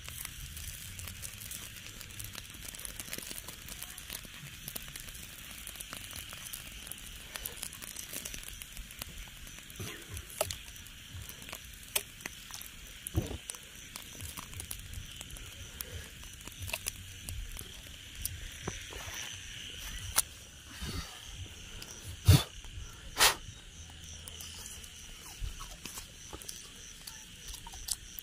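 Embers of a small open fire crackling with scattered little clicks, and two loud sharp pops close together about three-quarters of the way through, against a steady chorus of night insects chirping.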